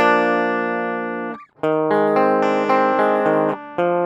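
Electric guitar playing ringing chords with no effect on the sound, the chorus pedal bypassed. The chords are stopped short for a moment about a second and a half in and again near the end before the next chord rings out.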